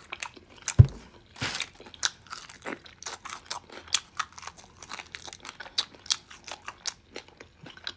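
Close-up crunching and chewing of a crispy fried chicken wing, many short crisp crunches one after another. A single loud thump sounds a little under a second in.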